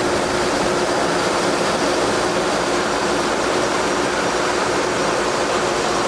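LOVOL RG108 Plus combine harvester running steadily while unloading threshed rice through its auger spout: a dense, even machine noise with a steady hum.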